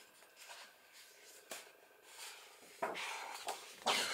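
Sheets of a 6x6 patterned paper pad being handled and turned: mostly quiet at first, then two short papery swishes of a page being lifted and flipped about three and four seconds in.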